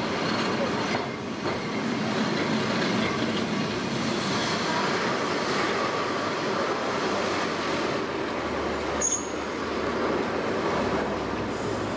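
Vintage tramcar running along street rails, a steady rumble and rattle of steel wheels on the track with faint wheel squeal. A brief sharp click about nine seconds in.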